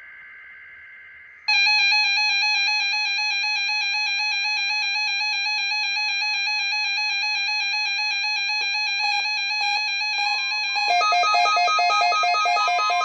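Weather-radio warning alarm during a weekly test. A brief, faint buzzing data burst is followed, about a second and a half in, by a loud, steady electronic alarm tone. Near the end a second, rapidly pulsing electronic tone pattern joins it.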